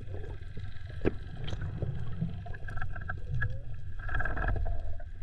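Outboard motor of a small boat running, a steady low drone, with a few short sharp knocks over it.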